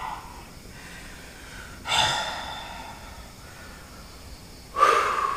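A person's forceful, voiced exhalations: two sudden harsh breathy cries about three seconds apart, each fading over about a second, made by someone in a trance-like state during a healing session.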